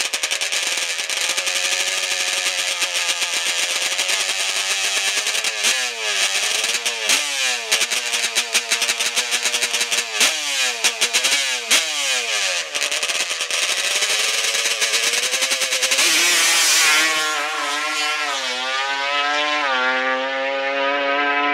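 Two-stroke twin engine of a Yamaha Banshee-based drag trike with expansion-chamber pipes, held at high revs during a burnout, then blipped up and down repeatedly. About two-thirds of the way in it launches and pulls hard, the pitch climbing and dropping back with each gear shift.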